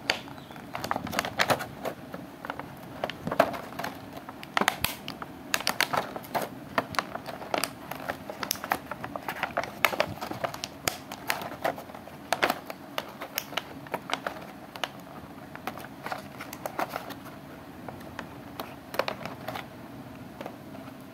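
Plastic packaging tray and cardboard box being handled as a neckband headset and its cable are lifted out: irregular clicks, taps and crinkles, busiest over the first dozen seconds and again near the end.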